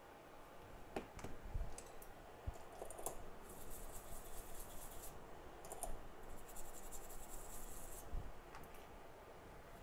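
Scattered light clicks and taps, with two spells of high scratchy rasping, from small tools being handled on a workbench.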